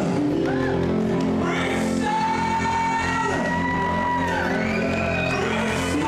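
Live reggae band playing through a PA in a large hall, with a vocalist singing over it.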